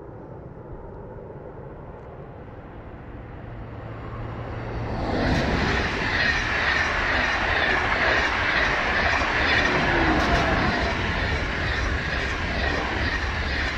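SNCF TGV high-speed train approaching and then passing close by at speed. A low rising rush builds for about five seconds, then jumps to a loud, steady roar of wheels on rail as the cars go by.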